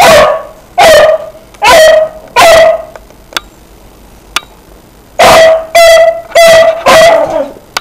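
A dog barking in short, sharp, high barks at another dog that is holding a bone: four barks, a pause of about two seconds with two faint clicks, then five more in quick succession.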